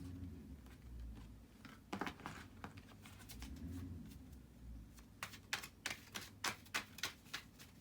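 Soft handling noise, then a quick run of about a dozen light, sharp clicks and taps over two or three seconds near the end.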